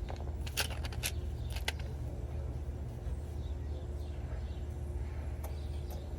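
A few light metallic clicks in the first two seconds, from hand tools and a cotter pin being worked at a car's front wheel spindle nut, over a steady low hum.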